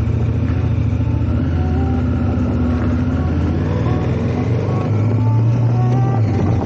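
Adventure motorcycle engine running steadily, a little louder about five seconds in, under background music with a melody.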